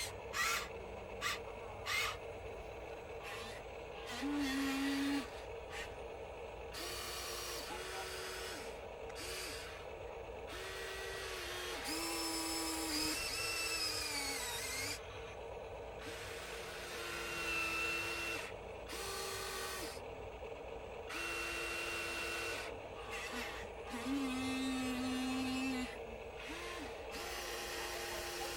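Small electric motors of a Huina RC excavator whining in short bursts of a second or two, starting and stopping over a steady background hum.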